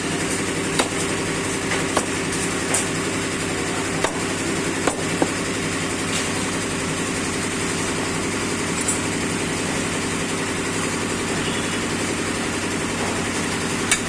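A running engine drones steadily throughout, with sharp knocks: several in the first five seconds and one near the end.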